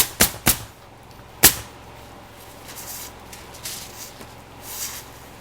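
Pneumatic roofing nailer firing nails into asphalt shingles: three quick shots in the first half second and another about a second later, then fainter knocks and scraping.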